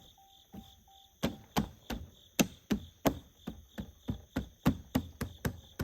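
Sharp clicks and knocks, about three a second from about a second in, as a part is fitted back on a Predator 2500 inverter generator after oiling. Night insects trill steadily behind.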